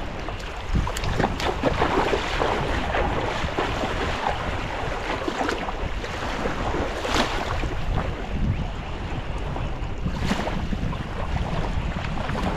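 Small waves lapping onto a sandy river beach, with wind buffeting the microphone and the splashing of people wading into the water.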